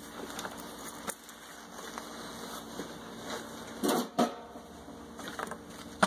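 Handling noises as a leather coat and a canvas bag are moved about and small tools are set down on a workbench: scattered clicks and rustling, with a louder couple of knocks about four seconds in.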